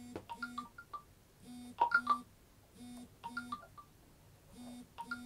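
Mobile phone interference buzzing through the recording: pairs of short electronic buzzes with chirping clicks, repeating about every one and a half seconds. This is the typical dit-dit pattern of a GSM phone lying near the microphone while it exchanges signals with the network, as it does on an incoming call.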